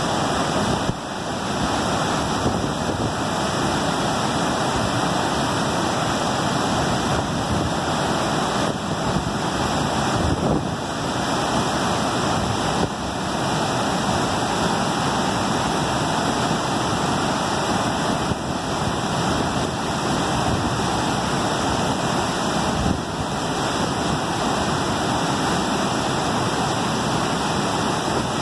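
Large waterfall plunging into its pool at close range: a steady, loud rushing of water.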